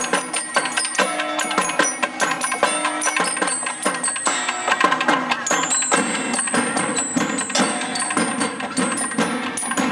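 Dance music with a busy, rapid percussion beat of sharp clicking strikes under ringing pitched notes.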